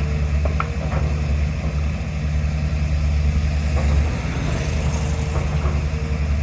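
Diesel engine of heavy construction machinery running steadily at a low, even rumble, with a few faint clicks and knocks.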